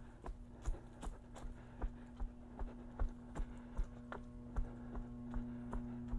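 Jogging footsteps on a paved path, a regular knock about two and a half times a second. Under them runs a steady low electrical hum that grows louder near the end, from the building's louvred mechanical vent.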